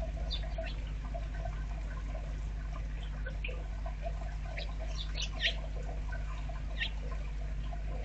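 Rain dripping steadily over a low hum, with a few short, high bird chirps scattered through; the loudest chirp comes about five and a half seconds in.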